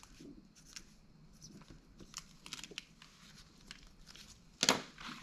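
Handling noise: faint clicks and rustling as a steel connecting rod is shifted about on a weighing scale, with one sharper clack near the end.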